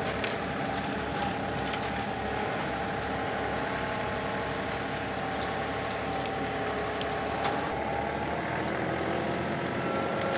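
John Deere compact tractor's diesel engine running steadily under load as it moves a grapple load of brush. The engine note changes about eight seconds in.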